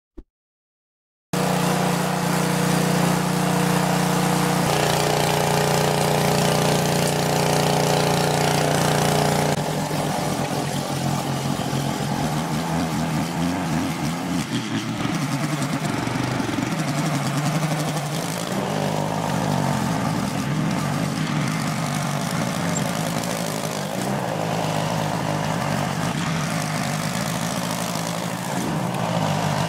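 Small gasoline engine of a rear-tine garden tiller running steadily. From about ten seconds in it works under an uneven load as the tines churn through soil, its pitch wavering.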